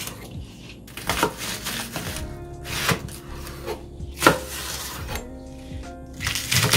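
Chef's knife cutting through stalks of daepa (large green onion) on a plastic cutting board: about four separate crisp cuts, each ending with the blade knocking the board.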